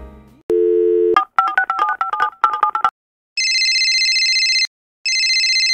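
Telephone sound effect: a short dial tone, then a quick series of keypad tones being dialled, then the phone ringing twice.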